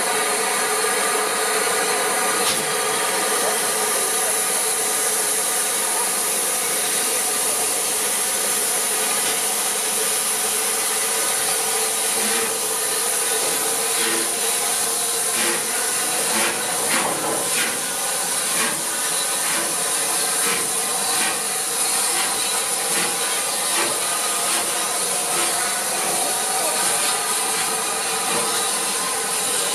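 Steam locomotive 35018 British India Line, a rebuilt Bulleid Merchant Navy class Pacific, hissing steadily with steam, with a run of light clicks about halfway through.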